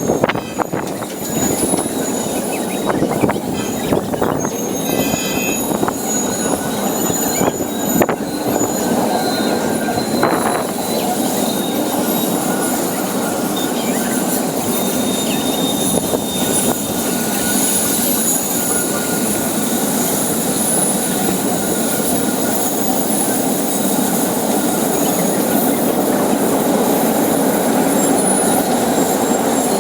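Railroad cars of a freight train rolling steadily past, with steel wheels squealing in thin high-pitched tones over the rumble and a few clacks near the start.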